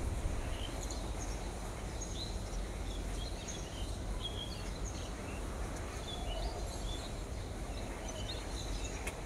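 Faint, scattered chirps of small birds over a steady low background hum.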